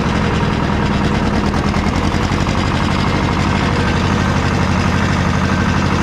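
Small farm tractor's engine running steadily with a fast, even low chugging.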